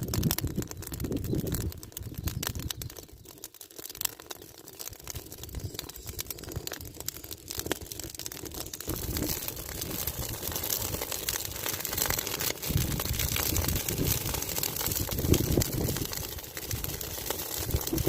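Dry plant leaves burning with a dense, continuous crackling that grows thicker about halfway through, over intermittent low rumbles.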